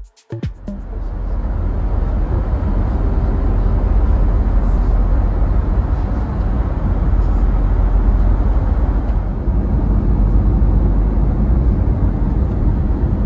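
Airbus A319 cabin noise: the jet engines running at high power with a deep, steady rumble, swelling up within the first second or two and holding loud.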